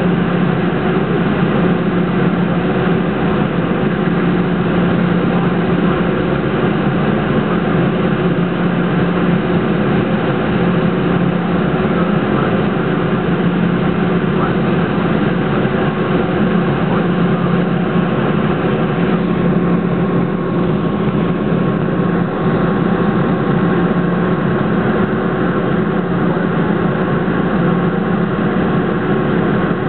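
Airliner jet engines running at idle, heard from inside the passenger cabin as a steady drone with a low hum.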